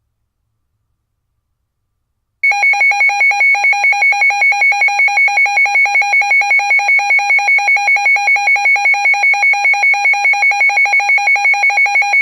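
Weather radio's alert alarm going off for a Special Marine Warning. After a couple of seconds of silence it starts a loud, rapidly pulsing electronic beep, about five pulses a second, at a steady pitch.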